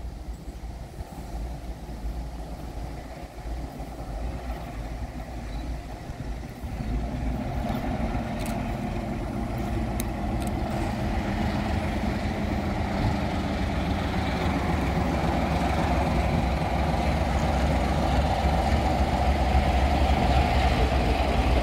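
A diesel locomotive's engine running steadily as the locomotive moves slowly along the track. It grows louder from about a third of the way in as it draws nearer.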